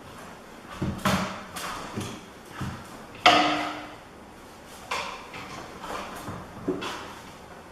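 Handling knocks and scrapes as a template piece is picked up and set into an inside corner. There are several sharp clacks, the loudest about three seconds in with a brief ring.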